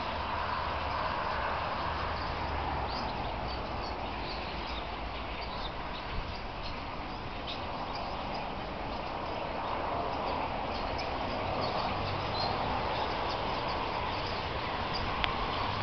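A large flock of starlings calling all at once: a dense, continuous chatter full of short clicks, over a steady low rumble.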